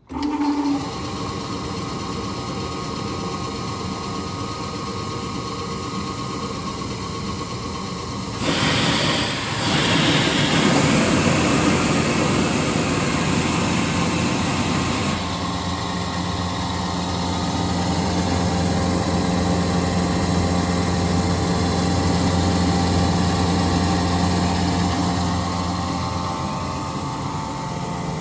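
Atlas Copco GA 11 electric screw air compressor starting suddenly and running with a steady mechanical hum. About eight seconds in a loud hiss of air joins for some six seconds and then stops, after which the hum is deeper and stronger.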